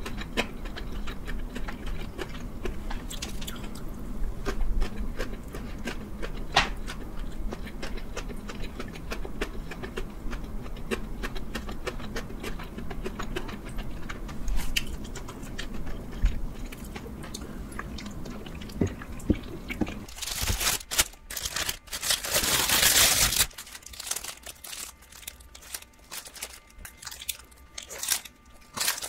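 Close-up mouth sounds of chewing kimbap, with many small wet clicks and crunches. About twenty seconds in, a loud rustling hiss lasting about three seconds, then quieter biting and chewing of a burger.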